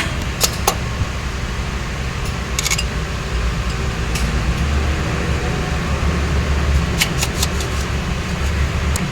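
Steady low hum of a workshop fan, with a scattering of short sharp metallic clicks and clinks as parts and tools are handled, several in quick succession near the start, the middle and the end.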